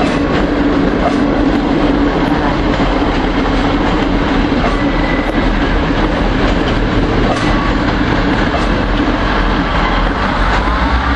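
A train moving through the station close by, with a steady loud rumble of wheels and running gear. A humming tone fades over the first few seconds, and a rising whine comes in near the end.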